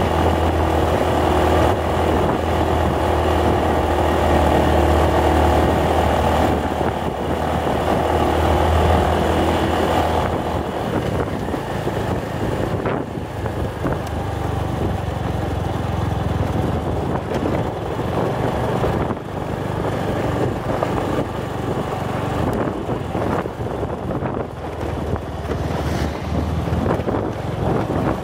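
Motorcycle engine running steadily while riding, with wind rushing on the microphone. About ten seconds in the engine hum drops and becomes quieter and rougher.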